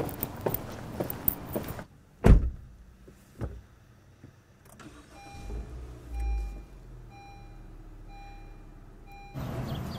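Footsteps on hard ground, then a car door shuts with a heavy thud and a second, lighter knock follows. The car's engine starts with a low rumble while a dashboard warning chime beeps repeatedly, roughly every half second. Near the end, the steady hiss of street traffic takes over.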